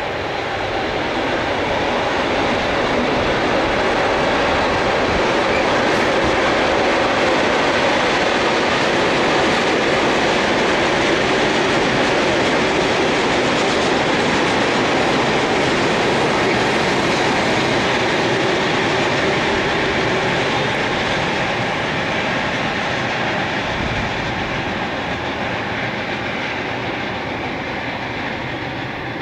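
Freight train hauled by a DB electric locomotive passing, with a steady rolling noise from the wagons on the rails. It builds over the first few seconds, holds, and fades near the end as the last wagons go by.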